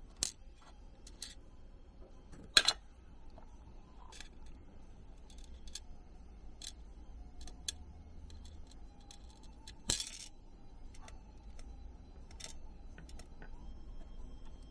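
Scattered small clicks and taps of metal tweezers and a tiny part against a stainless steel tray and a small plastic part. The loudest are a quick double tick about two and a half seconds in and a sharp click near ten seconds.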